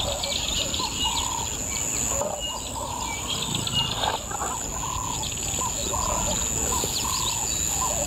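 Wild birds calling over and over in short arching whistles and chirps, over a steady high-pitched buzz.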